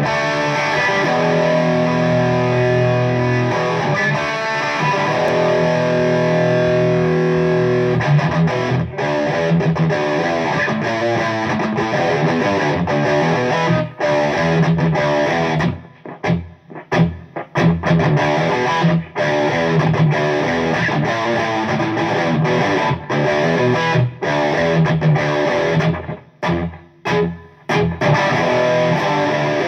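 Electric guitar with distortion, played through a pedalboard and a four-speaker Rand cabinet: long held chords at first, then choppy rhythm playing with a few short stops.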